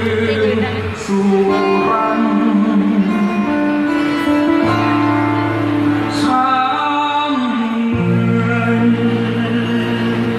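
A man singing a slow song while strumming an acoustic guitar, amplified through a PA system, his voice holding long notes.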